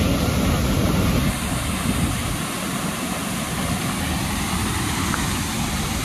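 Steady rush of two waterfalls plunging into a rock pool, a constant even roar of falling water.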